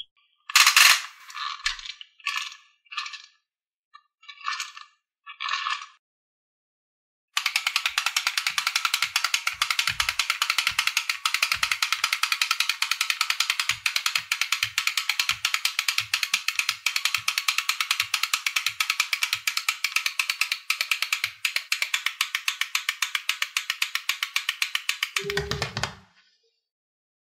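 Rapid, even ratchet-like clicking from a small mechanism, running for about twenty seconds after a handful of short rattling bursts, and ending with a brief low thump.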